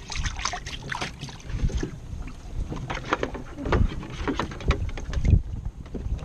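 Water sloshing and splashing in a plastic bucket as hands rinse fish fillets, in irregular bursts with a few low thumps.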